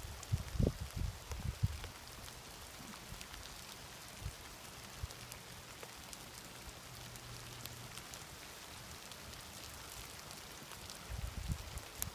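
Faint outdoor background noise: wind buffeting the microphone in the first couple of seconds, then a steady hiss with a light scattering of small ticks, and a faint low hum for a few seconds in the middle.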